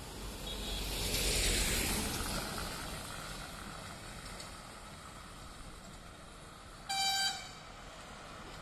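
Steady road and engine noise from driving, swelling briefly in the first couple of seconds. Near the end comes a short single-note vehicle horn toot, about half a second long.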